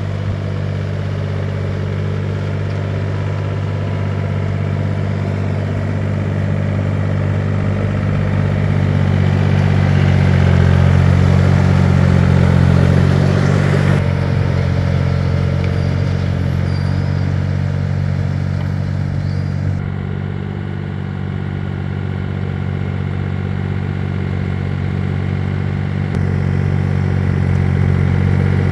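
Engine of a two-wheel walking tractor (power tiller) running steadily, growing louder a little before halfway, then dropping back abruptly.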